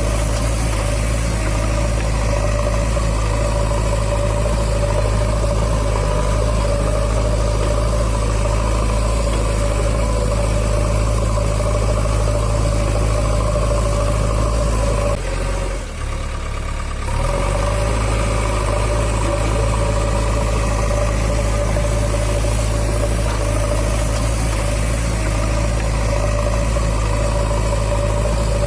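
A steady engine idling sound with a deep, unchanging hum, briefly dipping and changing about halfway through before carrying on as before.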